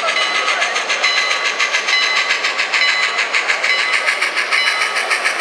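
Sampled steam-locomotive chuffing from the DCC sound decoder of a Bachmann N-scale K4 model steam locomotive, played through its tiny onboard speaker: a fast, steady beat of chuffs, thin and with no bass.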